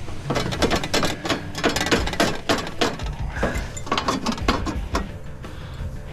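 Rapid, irregular metallic clicking and clattering from hand tools working on a PTAC unit's sheet-metal parts and screws during teardown.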